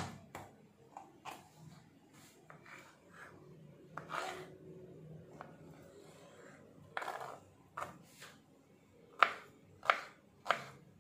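Knife cutting mango on a cutting board: scattered taps and a few longer scrapes, then near the end a steady run of sharp chopping knocks, about one every 0.6 seconds.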